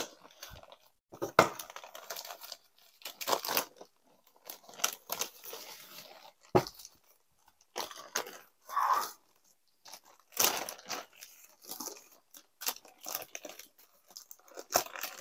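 Plastic poly mailer and bubble wrap rustling and crinkling in irregular bursts as a wrapped parcel is opened by hand and its contents pulled out, with a few sharp snaps of the plastic.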